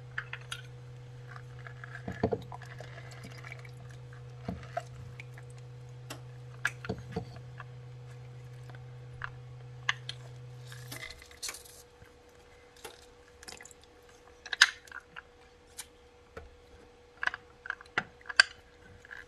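Hinged hand citrus press squeezing a lime over a plastic blender cup: scattered clicks and knocks as the press is worked, with juice trickling into the cup. The sharpest knocks come about two-thirds of the way through and near the end.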